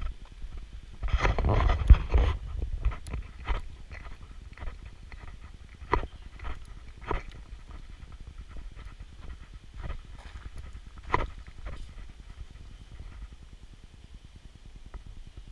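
Footsteps and handling knocks from walking with a handheld action camera: irregular scuffs and taps about every half second, with a louder burst of rustling and bumping from about one to two and a half seconds in.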